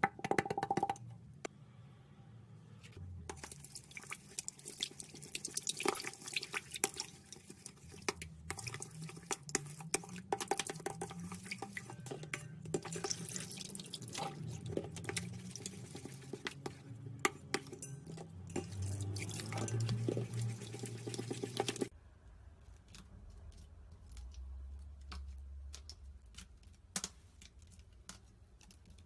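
Slime being squeezed and worked by hand, a dense run of small wet clicks and pops. It stops abruptly about 22 seconds in, and fainter scattered clicks follow.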